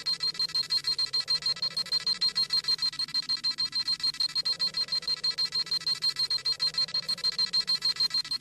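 Dragon Ball Z scouter sound effect: a fast, even train of high-pitched electronic beeps, about six a second, the scouter scanning a power level.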